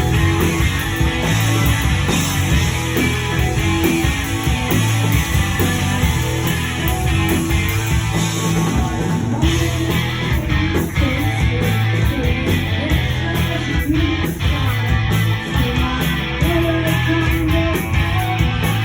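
Rock band playing live: loud electric guitars over bass and drums.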